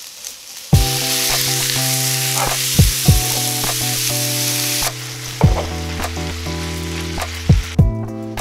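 Sliced onions and carrots sizzling loudly as they are stir-fried in an oiled pan, over background music with a steady beat. The sizzle drops sharply about five seconds in and dies away near the end, leaving the music.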